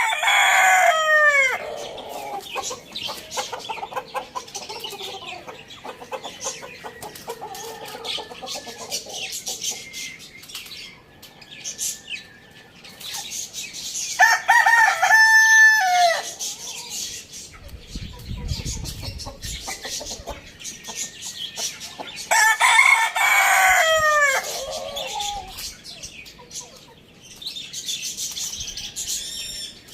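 Roosters crowing three times, once at the start, once about 14 seconds in and once about 23 seconds in, each crow a long call falling in pitch at its end. Between the crows there is steady clucking and high chirping from other birds.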